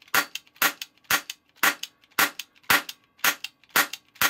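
Lawman die-cast metal cap revolver firing a 12-shot ring of caps, one sharp crack about every half second, nine in a row. Every cap goes off without a misfire.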